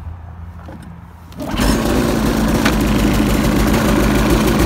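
2011 Arctic Cat M8's 800cc two-stroke twin starting up. After a low steady hum, it catches about a second and a half in and settles straight into a steady, busy idle.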